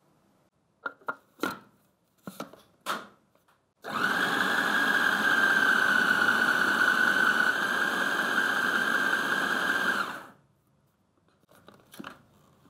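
A few sharp plastic clicks and knocks as the food processor's lid is fitted, then the food processor motor runs for about six seconds with a steady whine, blending a wet shrimp, spinach and mushroom mixture to a paste, before it stops and winds down.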